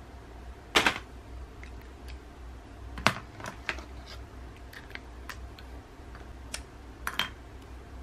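Scattered light clicks and taps of pens and pencils being handled and set down on a desk, the sharpest a double click about a second in, another near three seconds and a double near the end, over a steady low hum.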